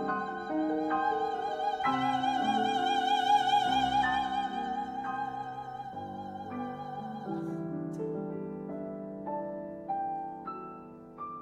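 A soprano holds one long high note with a wide vibrato over piano chords; the voice stops about seven seconds in and the piano goes on alone, its notes fading away.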